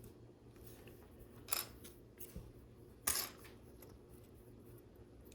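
A few short clicks of plastic LEGO bricks being handled and pressed onto the build, the sharpest about three seconds in, over a faint steady hum.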